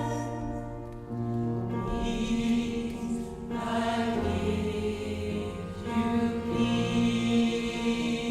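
Gospel choir singing sustained chords over a low bass line.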